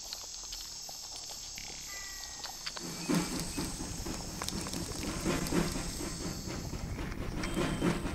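A steady high hiss, then from about three seconds in a quick, irregular patter of soft taps and clicks that runs on.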